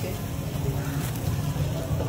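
Busy street-market ambience: a steady low hum under background voices.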